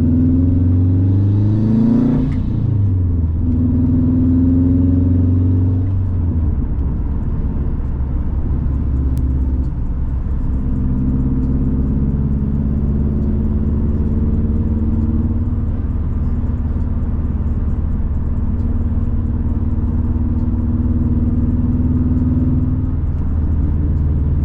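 2011 Subaru WRX's turbocharged 2.5-litre flat-four engine under a hard full-throttle pull: the engine note climbs, breaks with a short hiss at a gear change about two seconds in, climbs again, then settles to steady cruising after about six seconds.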